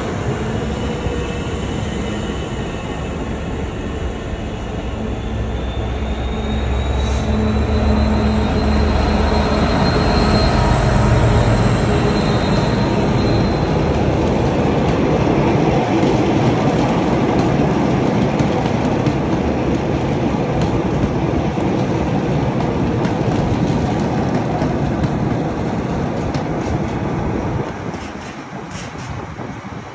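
Freightliner Class 66 diesel locomotive, with its two-stroke V12 engine, passing close by hauling loaded hopper wagons: the low engine rumble builds and is loudest around ten seconds in, then gives way to the steady rolling clatter of the wagons, which eases off near the end. A thin high wheel squeal rises and falls as the locomotive approaches.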